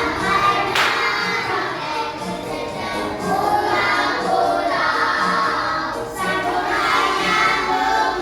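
A group of children singing together over music with a steady beat.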